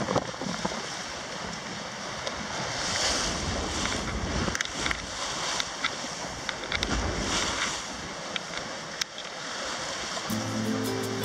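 Wind and sea water rushing past a yacht sailing under way, with gusts of wind buffeting the microphone. Background music comes in near the end.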